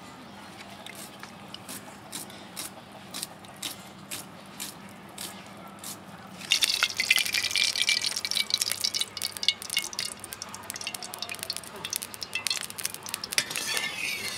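Hot oil frying in a kadai: scattered pops at first, then loud, dense sizzling and crackling starting about six and a half seconds in.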